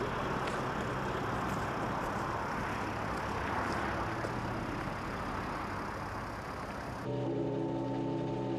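Vehicle engine running with road noise; about seven seconds in it cuts abruptly to several steady tones held together.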